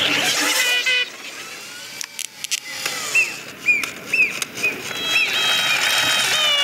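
Toy-movement sound effects from an animated film: a few sharp clicks and knocks, then a run of short squeaky chirps about three seconds in, and a held tone with several pitches over the last second and a half.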